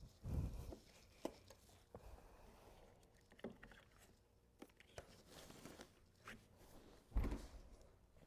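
Irregular thumps and knocks of parts being handled and set down, with a few sharp clicks between them; the loudest thuds come right at the start and about seven seconds in.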